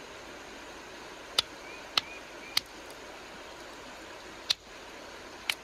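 Flintknapping: five sharp clicking strikes on a piece of quartzite, three in quick succession about half a second apart and two more spaced about a second apart, over the steady wash of a creek.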